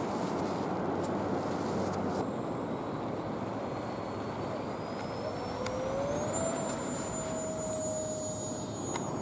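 Radio-controlled A-10 Thunderbolt II model jet's twin engines spooling up for its takeoff run: a high whine starts about two seconds in and rises in pitch, then holds steady through the last few seconds, over a steady rushing noise.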